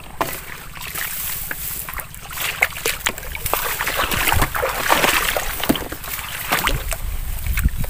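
Someone wading through shallow marsh water and grass: irregular splashing and sloshing steps mixed with crackling of dry grass stems.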